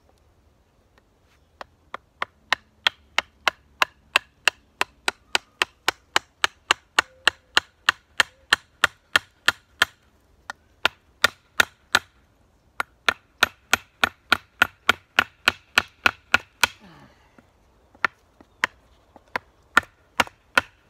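A wooden baton knocking on a hatchet over and over, driving the head tight onto a freshly carved green-wood handle. Sharp wooden knocks, about three a second, with two short breaks, then slower and sparser near the end.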